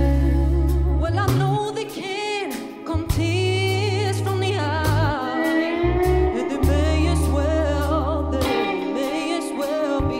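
Live band music: a woman sings long, sliding vocal lines over held bass notes, drums and guitar.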